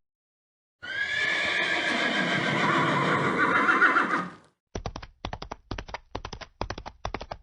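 A horse whinnying: one long neigh lasting about four seconds. It is followed by hooves clip-clopping in a steady run of quick knocks.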